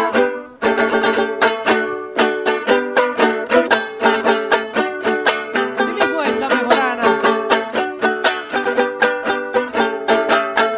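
Panamanian mejorana, a small five-string folk guitar, strummed in a fast, steady rhythm, playing a mesano in the 25 (veinticinco) tuning. The playing drops out for a moment near the start, then runs on.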